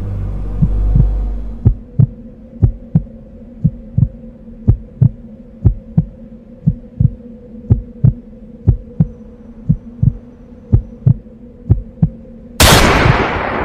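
Heartbeat sound effect in a film score: double thumps about once a second over a steady low drone, then a sudden loud hit that rings out near the end.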